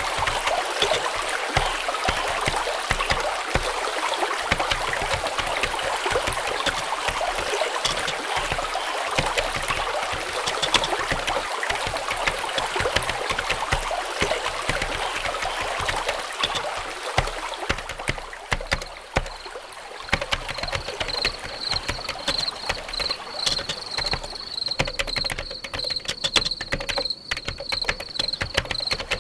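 Running water, a steady stream-like rush, that fades out about two-thirds of the way through. Crickets chirping take over: a steady, high, pulsing trill.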